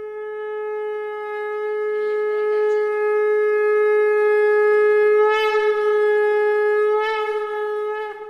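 A conch shell (shankh) blown in one long, steady note lasting about nine seconds, growing louder towards the middle and fading near the end.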